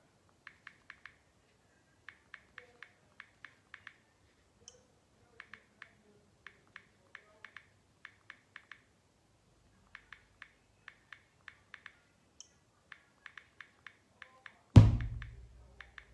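Instrumental beat: quiet, crisp ticks like a hi-hat in quick clusters at a steady pace, then a single loud, deep bass-drum boom near the end that rings out for about a second.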